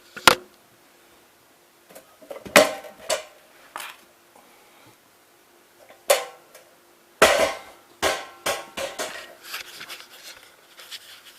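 Hard knocks and clatter of pump parts and tools being handled and set down: a handful of sharp knocks spread over the first eight seconds, then lighter rattling and clicking.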